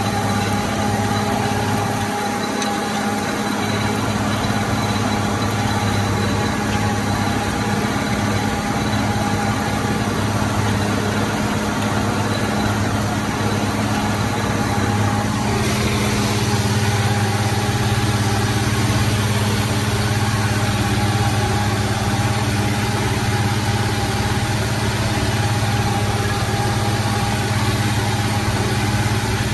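The six-cylinder diesel engine of a Zetor 16245 tractor running steadily under load while pulling a plough, heard from the cab. Its tone changes slightly about halfway through.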